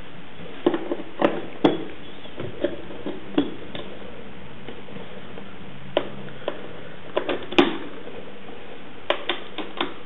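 Cables being plugged back into the rear ports of a white Intel iMac: scattered sharp clicks and knocks of plugs and connectors, the loudest about seven and a half seconds in, over a steady hiss.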